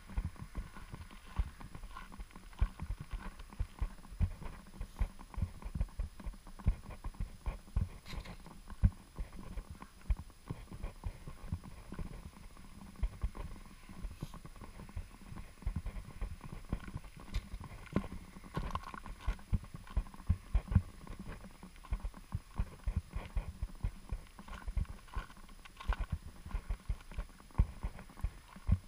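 Footsteps of a person walking on thin snow over pavement, dull thuds at a steady walking pace.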